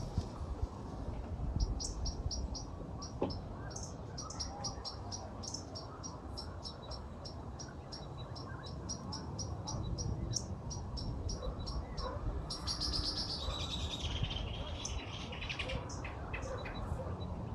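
Outdoor chirping: a run of short, high chirps repeated about three times a second, and a small bird's trilled song falling in pitch about thirteen seconds in, over a low steady rumble.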